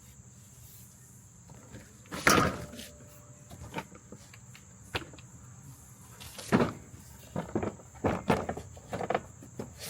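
Irregular knocks and clunks of car body parts being handled and pushed into place while a front bumper and intercooler are trial-fitted on the car's nose. The two loudest come about two seconds in and about six and a half seconds in, with a run of smaller taps and bumps after that. Crickets chirp steadily underneath.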